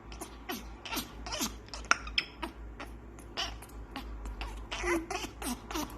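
African grey parrot making a rapid, irregular string of mouth clicks, several a second, with a few short squeaky and whistled notes mixed in.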